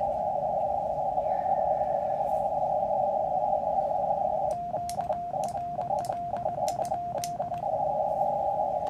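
QRP Labs QMX+ transceiver's receiver hiss, narrowed by its CW filter to a band of noise. About four and a half seconds in the hiss cuts out while the rig transmits, and its Morse sidetone beeps a burst of CW at 20 words per minute for about three seconds, with light clicks from the keyer paddle. Then the hiss returns.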